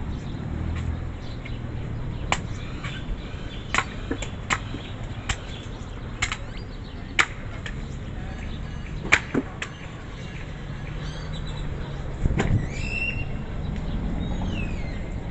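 Machete chopping a young green coconut on a wooden stump: about ten sharp, irregularly spaced strikes. Bird chirps come in near the end.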